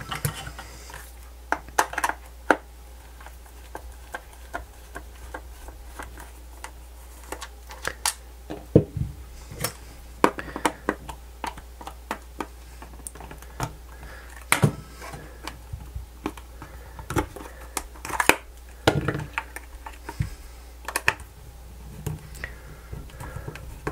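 Irregular small clicks, taps and scrapes as a screwdriver works the screws on the hard plastic case of a Fluke 87 V multimeter and the meter is handled.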